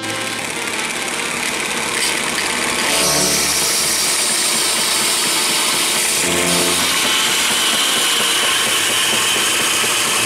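A woodworking power tool running with a loud, steady hiss, growing louder about three seconds in.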